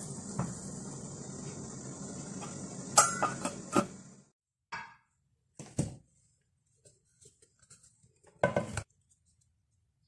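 Steel couscoussier pot and steamer clanking and clinking as the steamer basket is handled, over a steady hiss from the steaming pot that cuts off about four seconds in. Then a few short knocks and scrapes as cooked couscous is scooped into an earthenware dish with a wooden spoon.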